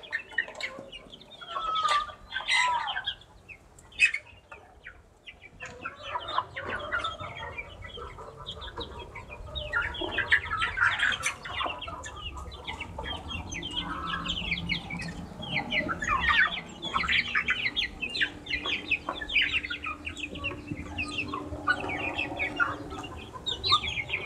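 A flock of young ayam kampung super chickens clucking and calling as they feed, with a dense run of short pecking taps at the feed in the trough.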